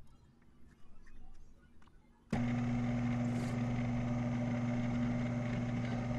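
The spindle motor of a 1998 Shoptask XMTC Gold lathe-mill combo starts abruptly a little over two seconds in and then runs with a steady hum. Before that, with the chuck stopped, only a few faint handling clicks are heard.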